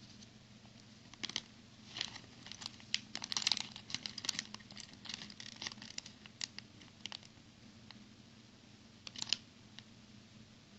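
Plastic packaging of a toy brick set crinkling and tearing, mixed with quick light clicks. It comes in busy bursts over the first seven seconds and once more, briefly, near the end.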